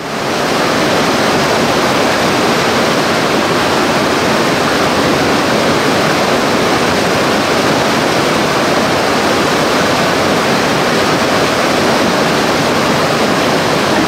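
Fast, turbulent river water rushing: a loud, steady, even rush with no change in it.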